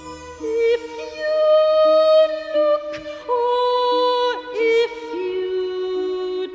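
A soprano sings a slow line of long held notes with vibrato, sliding between pitches, over a soft orchestral accompaniment. She moves down onto a lower held note about five seconds in.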